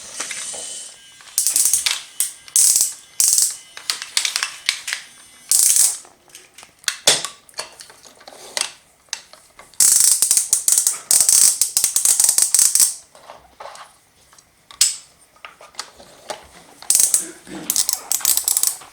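Toy pieces and packaging being handled: irregular bursts of high-pitched rustling and clicking, mostly short, with a longer run of rustling about ten seconds in.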